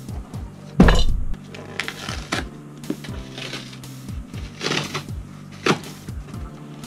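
A flat-pack furniture box set down on the floor with a heavy thump about a second in, then cardboard flaps being pulled open and rustled in several short bursts, over background music with a steady beat.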